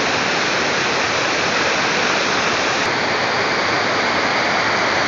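Shypit waterfall: water pouring down a stepped rock cascade, a steady, loud rushing noise.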